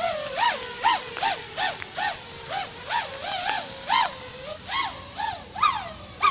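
FPV racing quad's four iFlight XING 2207 1800kv brushless motors whining on a 6S pack, the pitch jumping up and falling back in quick surges about three times a second as the throttle and sticks are worked. This is a test flight checking the yaw tuning.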